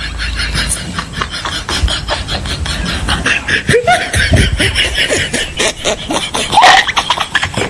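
People snickering and laughing in short bursts while they eat, with a brief loud laugh near the end. A fast, even high rasping pulse runs behind it through the first half.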